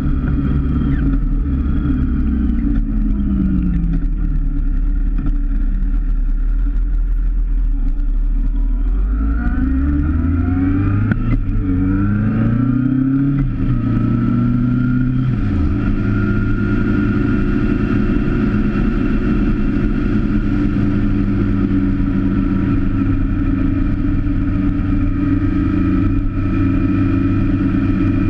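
Motorcycle engine heard from an onboard camera, running continuously. Its pitch falls in the first few seconds as the bike slows, climbs in several quick rising steps from about nine seconds in as it accelerates through the gears, then holds steady from about sixteen seconds on as it cruises.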